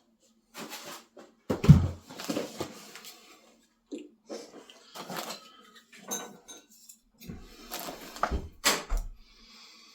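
Unboxing noises: packaging and printer parts being handled, with rustling and a series of irregular knocks and clatters, the loudest a little under two seconds in and two more sharp knocks near the end.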